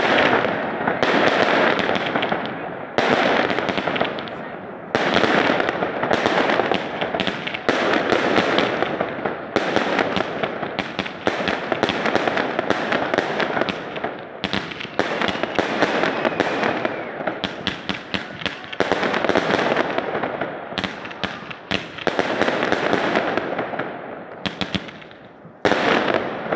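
Fireworks going off in rapid succession: a dense, unbroken run of sharp bangs and crackling, swelling in waves every two seconds or so.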